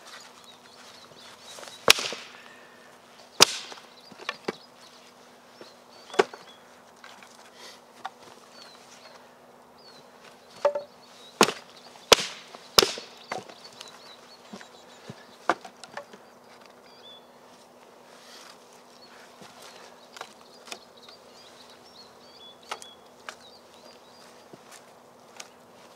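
Dry sticks and branches cracking and clattering as they are snapped and stacked into a campfire pile: single sharp cracks at irregular intervals, with a quick run of them near the middle. Faint birdsong chirps in the background.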